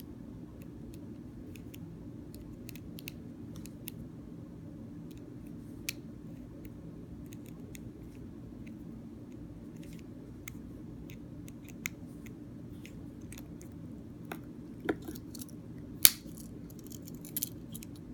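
Small scattered clicks and ticks of a tiny Phillips screwdriver working the screw out of a plastic car key fob, over a steady low hum. A few sharper clicks come in the last few seconds.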